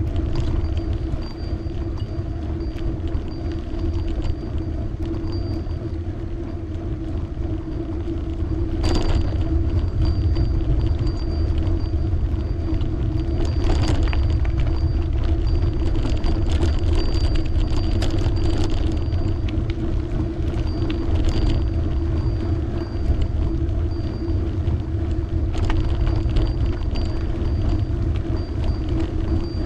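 Riding noise of a bicycle on the road: a continuous low rumble of wind and tyres with a steady hum, getting a little louder about nine seconds in, and a few short knocks from bumps along the way.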